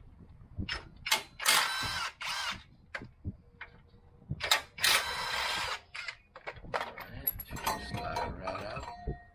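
Cordless power tool running out the shock absorber's lower mounting bolts on a truck's lower control arm, in two bursts of about a second each with a few shorter blips. Scattered metallic clicks and clinks of bolts and tools follow in the last few seconds.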